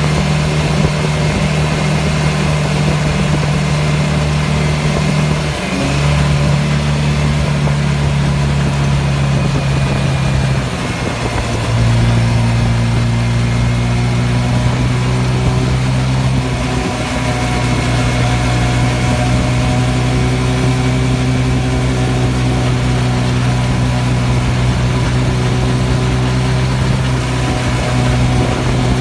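Go-kart engine running steadily while driving along a street, its pitch shifting a few times as the speed changes.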